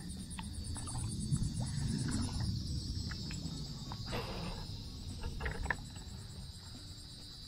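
Insects trilling steadily in a high, even buzz over a low rumbling noise, with a few faint short ticks.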